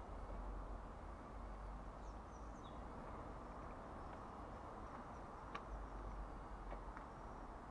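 Faint steady outdoor background hiss, with a few faint high bird chirps about two seconds in and a couple of light ticks later on.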